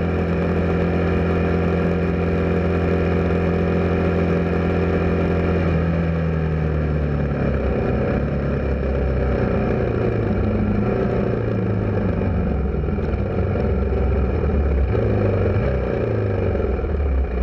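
Motorcycle engine running at a steady cruising speed, then its pitch drops about six seconds in as it slows, and it rises and falls unevenly after that.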